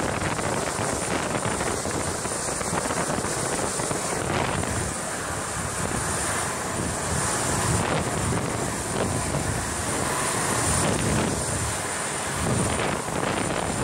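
Ilyushin Il-76 cargo jet running on the ice runway, a steady rush with a thin high whine over it, mixed with wind buffeting the microphone.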